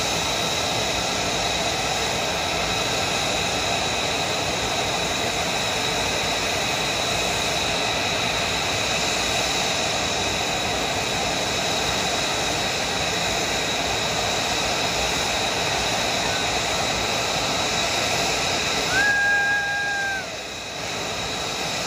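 F-35 fighter's jet engine idling: a steady hiss with a high, steady whine. About 19 seconds in, a brief steady tone sounds for about a second and the hiss drops in level.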